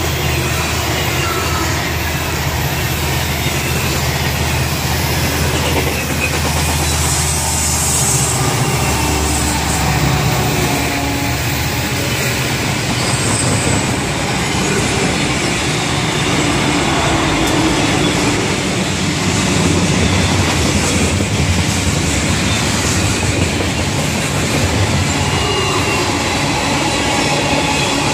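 Norfolk Southern freight train passing close, led by a consist of EMD diesel locomotives whose engines are running under power. After the locomotives, a string of covered hopper cars rolls by with the clickety-clack of wheels on the rails.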